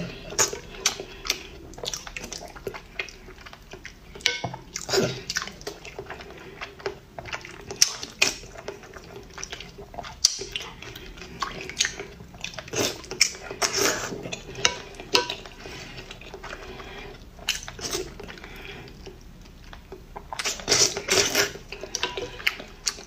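Close-miked eating sounds: a woman slurping chili-oil broth from a spoon and chewing boiled eggs, in irregular wet slurps and smacks that come in bunches, with the spoon now and then clinking on the bowl.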